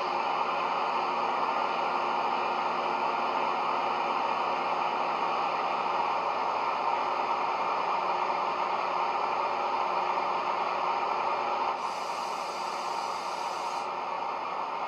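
Class 68 diesel engine sound (JMC sound file) played by a model locomotive's DCC sound decoder through a small EM1 speaker and a bass-enhanced speaker: the engine idles with a steady hum. About twelve seconds in, a high hiss joins for about two seconds.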